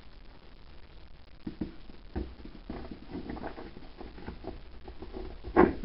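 Handling noise as an electronic accordion's circuit-board chassis is fitted into the bottom half of its case: scattered light knocks and rubbing, then one loud clunk near the end as it drops down into place.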